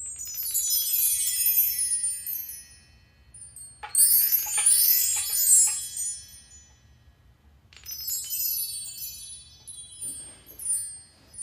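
Metal chimes shaken or swept three times, about four seconds apart, each time a shower of many high ringing tones that fades away, with a smaller touch near the end.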